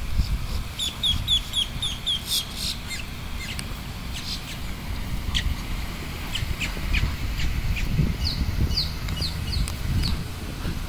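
Muscovy ducklings peeping: a quick run of short high chirps, about four a second, about a second in, then scattered peeps. A steady low rumble runs underneath.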